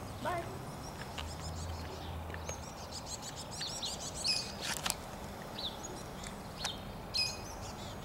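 Black-capped chickadee calling from a tree: a quick run of short high chirps a few seconds in, and another call near the end.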